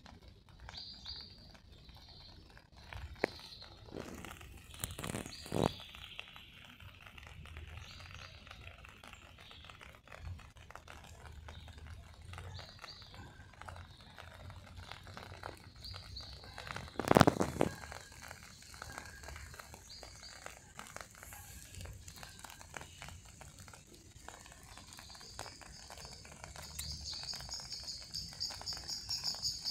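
Small birds chirping now and then in short high calls, with a fast repeated chirping trill near the end. A loud rustle close to the microphone comes about seventeen seconds in.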